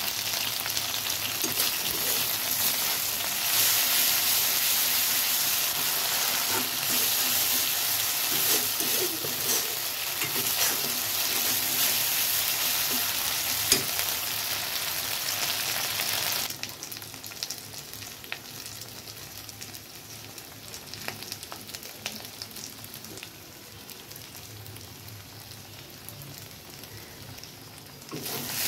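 Chopped onion frying in hot oil in a metal kadai, sizzling steadily while a metal spatula stirs and scrapes it, with one sharp knock a little before halfway. A bit past halfway the sizzle drops to a much quieter level, then comes back loud just at the end.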